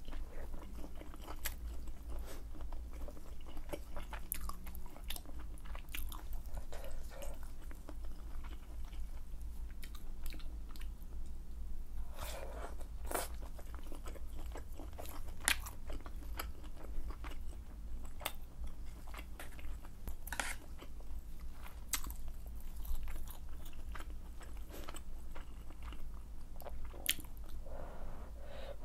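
Close-miked mouth sounds of eating malatang (spicy hot pot) with wide glass noodles and mushrooms: chewing and biting, with short wet clicks and smacks scattered irregularly and a few denser runs of eating noise. A faint steady low hum sits underneath.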